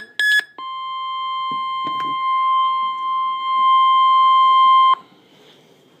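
Weather alert radio receiving a severe thunderstorm warning: the last two of its quick pulsed alert beeps, then the steady NOAA Weather Radio warning tone. The tone holds one pitch for about four seconds, growing louder, and cuts off suddenly, leaving faint hiss.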